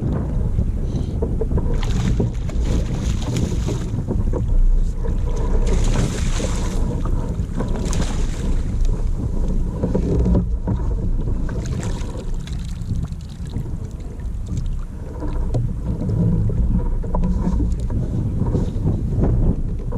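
Wind buffeting the microphone, with water washing and slapping against the hull of a small fishing boat.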